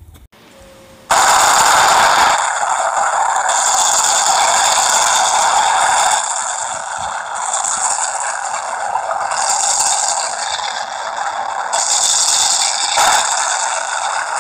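Sound effect of a fiery blast: a loud, steady rushing noise that cuts in suddenly about a second in and holds, shifting in tone every few seconds.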